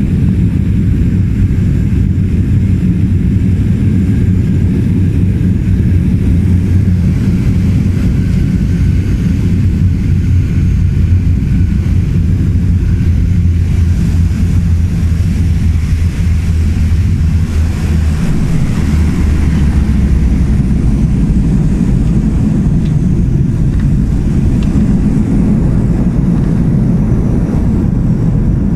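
De Havilland Canada DHC-6 Twin Otter's twin turboprop engines and propellers droning loudly, heard inside the cabin during the landing and rollout on a gravel runway. About two-thirds of the way through, the drone steps slightly lower in pitch.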